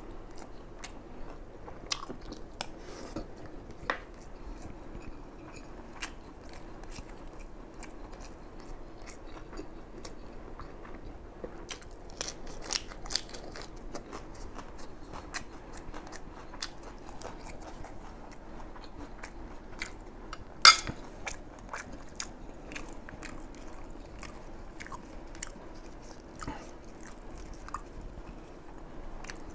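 Close-up chewing of a mouthful of fried rice, with many small wet mouth clicks and smacks, busier in the second half. One much louder sharp click comes about twenty seconds in.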